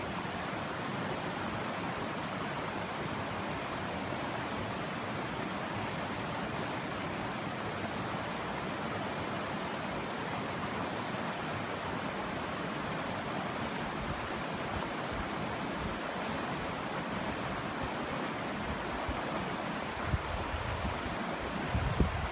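Rushing water of a mountain trout stream: a steady, even rush. A few low thumps from wind buffeting the microphone come in near the end.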